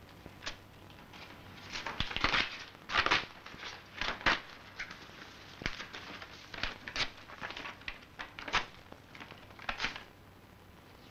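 Paper being torn and crumpled by hand in a run of short, irregular rips, the loudest between about two and four and a half seconds in, trailing off and stopping about ten seconds in.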